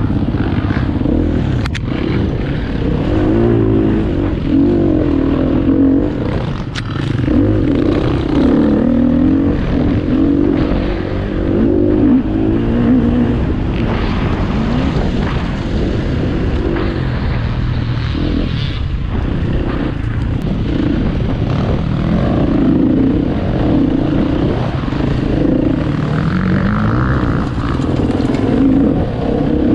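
KTM EXC 250 F single-cylinder four-stroke enduro motorcycle engine under way off-road, its revs rising and falling continuously as the throttle opens and closes. A few short knocks stand out against the engine, and there is a steady low rumble underneath.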